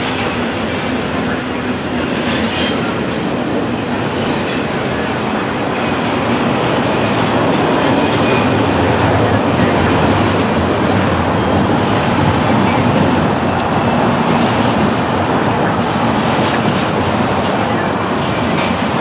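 Double-stack intermodal freight train cars rolling past: the steady noise of steel wheels on rail, growing a little louder about halfway through.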